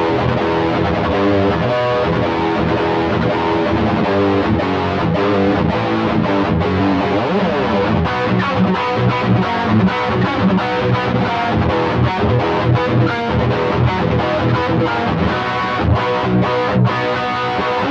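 Electric guitar played through an Xvive T1 Golden Brownie distortion pedal with its drive knob turned all the way up, giving heavily distorted riffs and chords. From about halfway through, the playing turns to choppy, stop-start rhythm.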